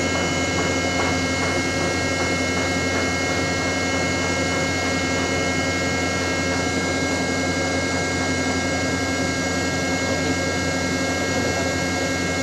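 Ship's deck crane machinery running with an even, unchanging hum, several steady whining tones held above it.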